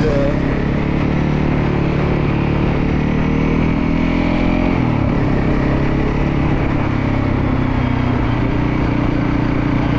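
Motorcycle engine running steadily while under way. Its note drops about halfway through and then holds at the lower pitch.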